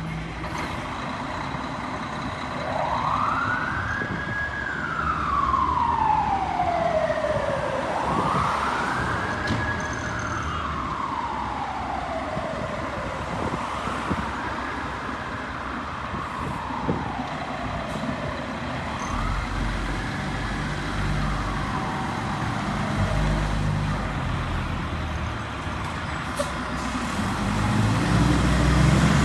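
Fire apparatus siren on a slow wail, sweeping up and gliding down four times and fading. A fire truck's engine idles underneath, growing louder near the end as the urban search and rescue rig pulls out of the station.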